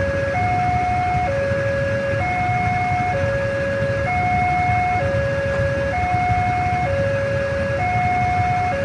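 Railway level crossing warning alarm sounding its two-tone electronic signal, a low and a higher note alternating about once a second, the warning that a train is coming while the barrier is down. A low rumble of idling motorcycle and car engines runs underneath.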